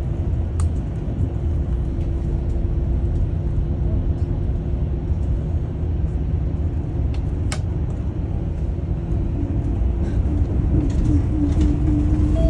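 Daewoo FX116 coach bus under way, heard from inside the cabin: a steady engine drone and road rumble with a steady tone running through it. A single sharp click comes about seven and a half seconds in.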